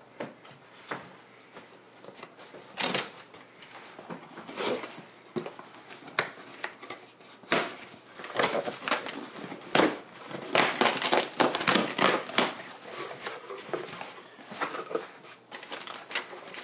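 Cardboard shipping box being opened by hand: irregular scrapes and rips as the packing tape and flaps are worked free, then the crackle of crumpled packing paper being handled near the end.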